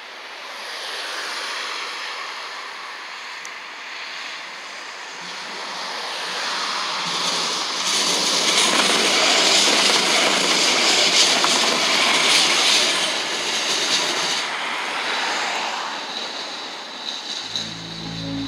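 Siemens-Duewag Supertram articulated tram passing close by: wheel and rail noise builds, is loudest about ten seconds in as the tram goes past, then fades as it moves away. Music comes in near the end.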